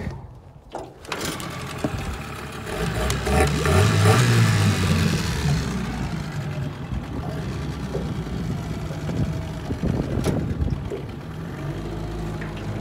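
Modified Tohatsu 9.8 hp two-stroke outboard starting about a second in, revving up briefly, then settling into a steady idle.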